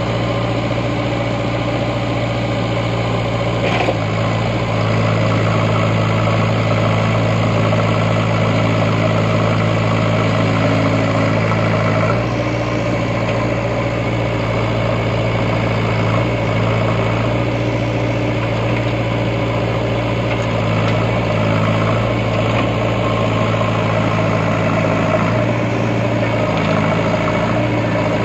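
JCB 3DX backhoe loader's diesel engine running steadily while the machine works stuck in mud, with a single knock about four seconds in and a slight change in engine note about twelve seconds in.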